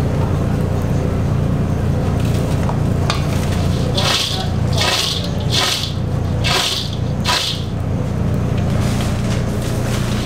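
Crispy fried bugak chips rustling and crackling in a stainless steel bowl as it is tossed: five short swishes about two-thirds of a second apart, a little after the middle. A steady low hum underlies it.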